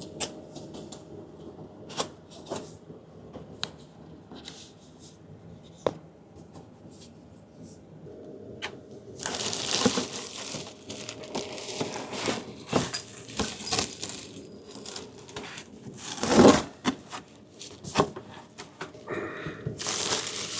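Packaging being handled during an unboxing: a few scattered knocks and clicks, then from about nine seconds in, continuous crinkling and rustling of packing material, with a loud crunch about sixteen seconds in.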